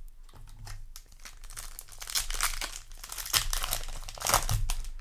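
Foil booster pack wrapper crinkling and tearing as it is handled and ripped open, louder in the second half with sharp crackles near the end.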